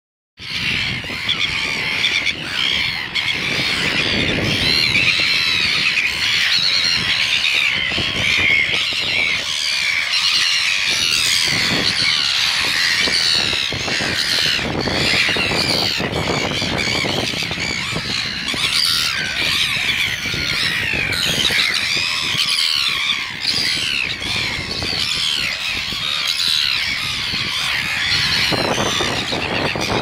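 A large flock of red-billed gulls calling constantly, many harsh squawking calls overlapping at once.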